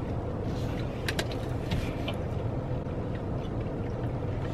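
Steady low hum of a car running, heard inside the cabin, with a couple of faint clicks about a second in.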